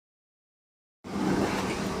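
Silence for about a second, then the sound cuts in suddenly: a Mercedes-Benz LO 916 bus running, its OM924 LA 4.8-litre four-cylinder diesel and its growling differential making a steady drone.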